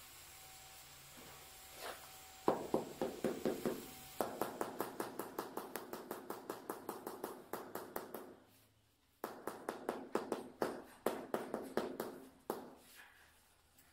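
Rapid, even tapping on a large stone floor tile, about five taps a second. It comes in two runs: the first starts about two and a half seconds in, there is a short break about eight seconds in, and the second run fades out near the end. The tile is being tapped down to settle it into its mortar bed.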